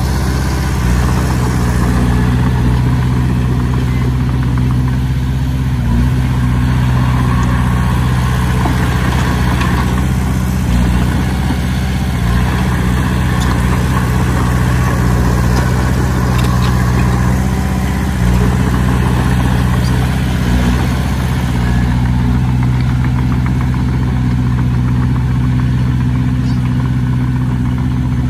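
Large diesel engine of heavy earthmoving machinery running steadily at a low, even note, which shifts slightly a few times.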